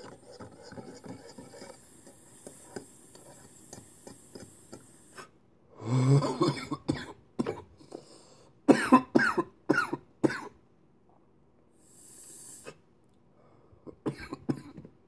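Water bubbling in a glass dab rig as a man inhales for about five seconds. He then exhales hard and coughs several times in a quick run, with a few smaller coughs near the end.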